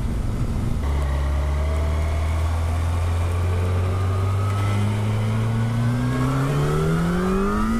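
Motorcycle engine, a 2011 Yamaha, accelerating hard in one long pull: from about a second in, its note climbs steadily in pitch, with wind rushing past.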